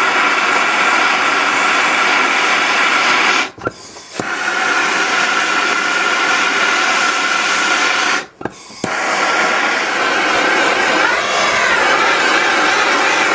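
Electric heat gun blowing steadily, shrinking heat-shrink tubing over a crimped terminal on heavy battery cable. It cuts out briefly twice, about a third and two-thirds of the way in.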